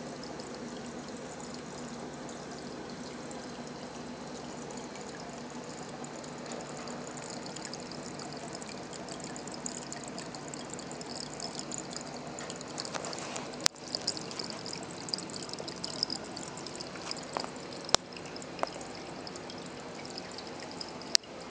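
Water pouring and trickling steadily in a small home aquaponics system, the flow running back into the fish tank. A few sharp clicks stand out in the second half.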